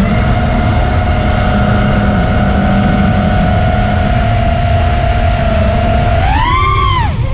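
5-inch FPV quadcopter's brushless motors and propellers whining over heavy wind rush. The pitch holds steady, then near the end swells up, drops sharply and climbs again as the throttle is punched, chopped and picked back up.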